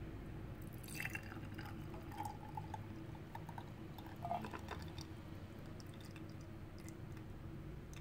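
A thin stream of warm cinnamon-and-clove infusion trickling from a pot through a plastic strainer into a glass bowl, with a few small clinks.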